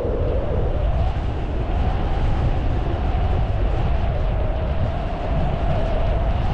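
Wind rushing and buffeting over the microphone in paraglider flight, with a steady whistling tone that drifts slowly up and down in pitch.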